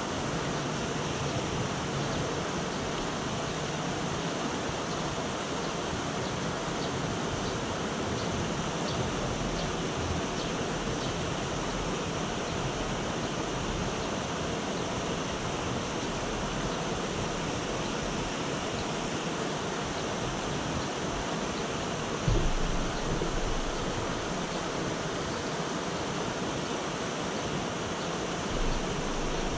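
Steady hiss of rain falling. About twenty-two seconds in there is a brief low thump, louder than the rain, and a smaller one near the end.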